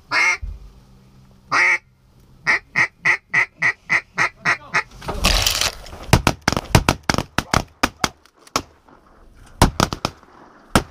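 A duck call is blown: long hail notes, then a run of about nine quick, evenly spaced quacks. After a second of rustling noise comes a volley of shotgun shots from several hunters, about a dozen sharp reports within two seconds and a few more near the end.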